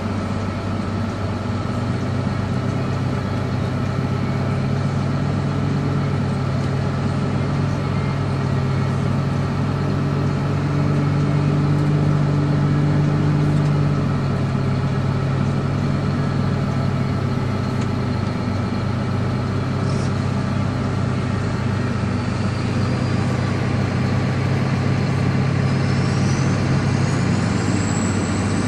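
Diesel engine of forestry machinery running steadily, heard from inside an operator's cab, with its note swelling for a few seconds about a third of the way in. A faint rising whine comes in near the end.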